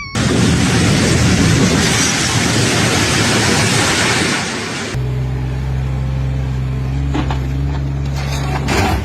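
A loud, even rushing noise that stops suddenly about five seconds in, followed by a steady low engine drone with a few faint knocks.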